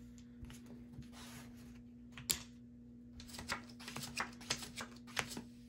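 Playing cards and casino chips handled on a felt blackjack table: a soft sliding hiss, a sharp click about two seconds in, then a run of light clicks and taps as cards are dealt.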